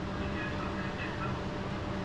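Steady mechanical hum from a top-loading washing machine's motor running, with a faint steady tone over it.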